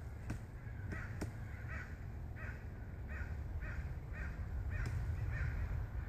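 Pileated woodpecker giving a slow series of about eight short, harsh, crow-like calls, roughly one every half to three-quarters of a second. A few sharp taps come between them.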